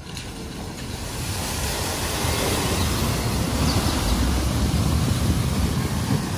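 A panel van driving through deep flood water at a ford, its wheels and bow wave churning up a rushing, splashing wash over a low rumble. The wash builds over the first couple of seconds, then holds steady.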